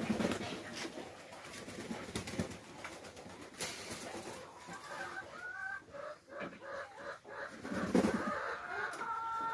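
Domestic pigeons cooing, a low coo at the start and another about eight seconds in. Higher bird calls come in during the second half.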